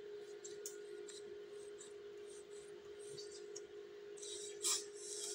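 Steady low hum with faint rustling, and a short hiss about four and a half seconds in.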